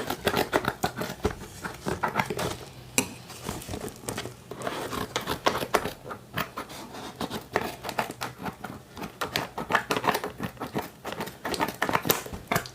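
Cardboard product box being opened and unpacked by hand: a continuous irregular run of rustling, scraping and small clicks of packaging.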